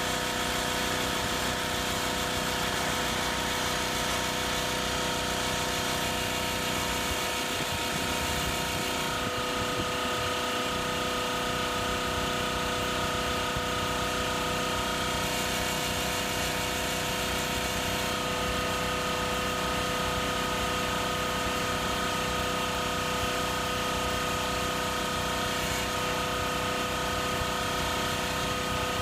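Makita AC4000 air compressor running steadily, its motor and pump holding an even hum.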